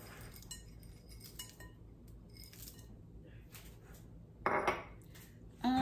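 Light clinks and taps of a small bowl and serving spoon as crumbled bacon is tipped into a glass mixing bowl, then a louder knock about four and a half seconds in as the small bowl is set down on the counter.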